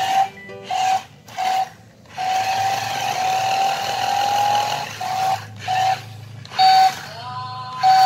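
Electronic beeping: a run of short beeps at one pitch, a longer tone in the middle that slowly rises, then more beeps with a quick upward glide near the end, over a steady hiss.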